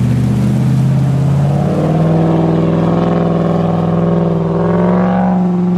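Land Rover Discovery V8 engine, fitted with a tuned camshaft and remap, revving. The revs step up about two seconds in and are held steady and high.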